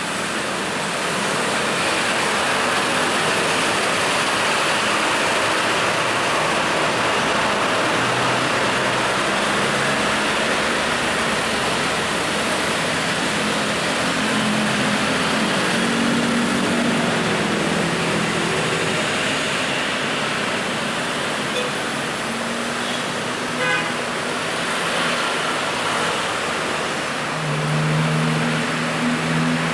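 Busy road traffic: a steady roar of passing cars and other motor vehicles, with a brief horn toot about two-thirds of the way through and an engine's hum growing louder near the end.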